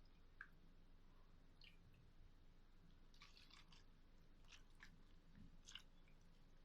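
Near silence with a few faint, scattered clicks and soft wet taps from stuffed eggplant and grape leaves being packed into a cooking pot.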